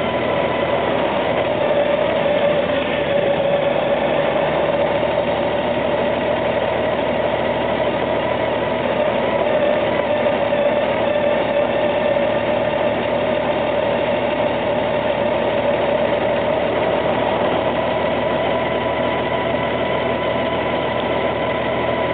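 Honda GL1800 Gold Wing motorcycle riding at a steady speed, its flat-six engine running evenly under wind and road noise, heard from a handlebar-mounted camcorder.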